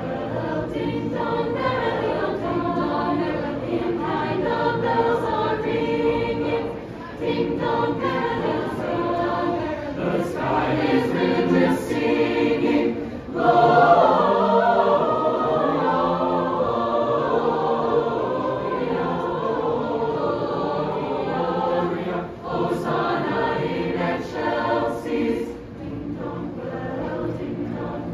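Mixed choir of carolers singing a Christmas carol unaccompanied, men's and women's voices together. About halfway through the singing swells louder and fuller.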